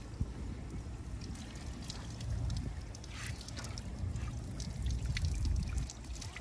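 Kayak paddle strokes: water splashing and trickling off the paddle blades in short, irregular spatters over a steady low rumble.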